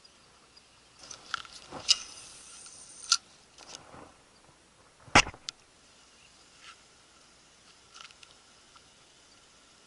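Handling noise from fishing gear and camera: a few sharp clicks and knocks, the loudest a single knock about five seconds in, over a faint steady hiss.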